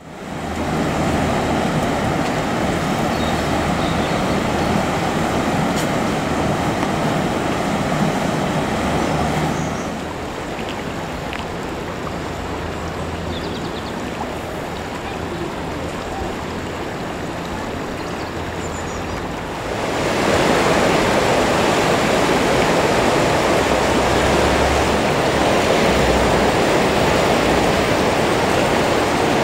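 Swollen river in flood rushing: a steady rush of water that drops at a cut about ten seconds in and comes back louder about twenty seconds in.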